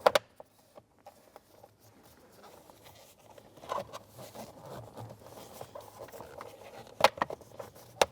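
Plastic steering column shroud halves being handled and pressed together: a sharp click just at the start, faint scraping and rustling, then a few more sharp clicks near the end.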